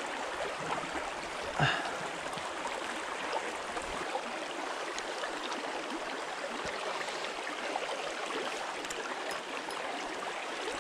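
Small stream's water running steadily over a shallow, stony riffle, with one brief louder sound a little under two seconds in.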